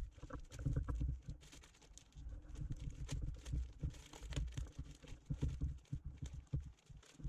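Plastic vacuum-bagging film crinkling and rustling under the fingers as it is pressed down onto sealant tape, with irregular soft low knocks from hands pressing on the mould.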